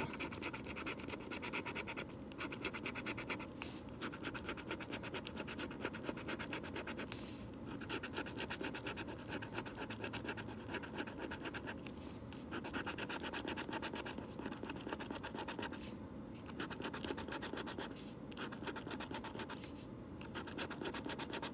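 A coin scratching the coating off a lottery scratch-off ticket in rapid back-and-forth strokes, pausing briefly several times.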